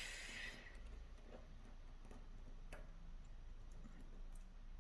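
A few faint, scattered clicks of small metal lock parts being handled as the sidebar is eased out of a Medeco Biaxial lock core.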